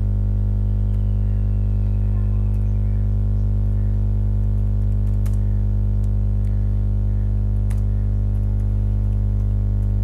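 Steady low electrical hum with a stack of evenly spaced overtones, with a few faint computer-keyboard key clicks scattered through it.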